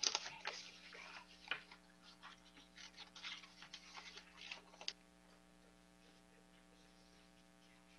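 Faint handling noise, irregular rustling and small clicks, that stops about five seconds in, leaving only a steady low electrical hum.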